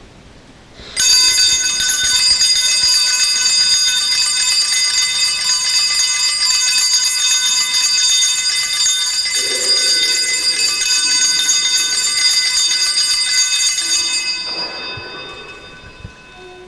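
A cluster of small altar bells rung continuously as the Blessed Sacrament is raised in blessing, the signal of the eucharistic blessing. The bells start suddenly about a second in, ring on with a bright jangling shimmer, then fade out near the end.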